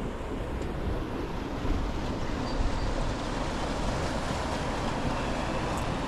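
Wind buffeting the microphone: an even, rushing noise, heaviest in the low end.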